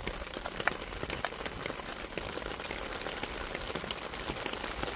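Steady rain falling, with scattered drops ticking sharply close by.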